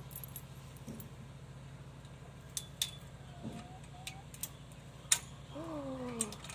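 Light clinks and clicks, scattered and irregular, with a short rising call a little after three seconds and a longer falling call near the end, over a steady low hum.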